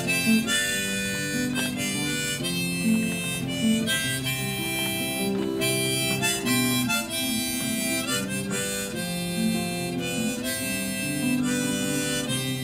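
Harmonica in a neck rack playing a melody of held notes over strummed acoustic guitar: the instrumental introduction to a folk song.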